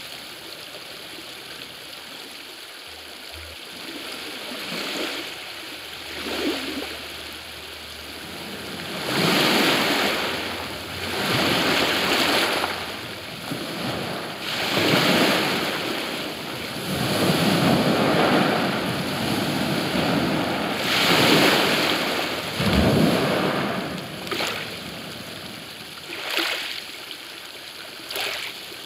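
Recorded river water rushing in wave-like swells: surges of noise build and fall away every two or three seconds, strongest through the middle, after a faint steady hiss in the first few seconds.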